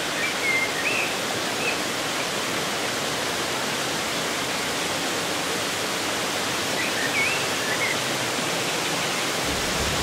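Steady rush of water tumbling over the small cascades of Erawan Falls, with a bird chirping briefly near the start and again about seven seconds in.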